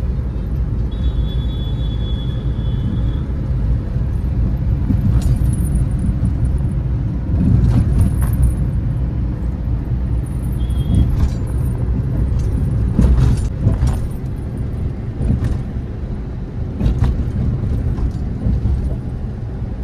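A car on the move, heard from inside the cabin: a steady low rumble of engine and road noise, with a few light clicks and knocks scattered through it.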